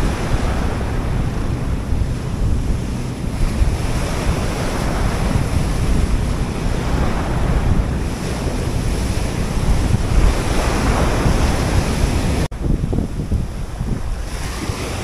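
Big sea waves breaking and washing in foam over shore rocks, with strong wind buffeting the microphone in a heavy, low rumble. The sound cuts out for an instant about twelve seconds in, then the surf and wind carry on.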